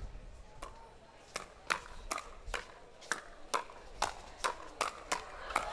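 Pickleball paddles striking a hard plastic pickleball in a fast volley exchange at the net: a string of sharp pops, about two a second at first and quickening to nearly three a second toward the end.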